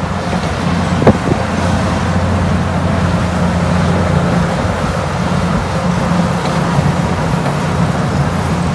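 Grand Canyon Railway passenger cars rolling slowly past, a steady low hum and rumble with a single sharp click about a second in.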